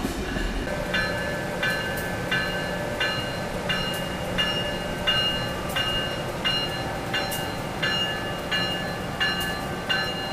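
Amtrak electric-hauled passenger train running past a station platform, with a bell ringing steadily about every 0.7 seconds. A steady hum steps up in pitch about two-thirds of the way through.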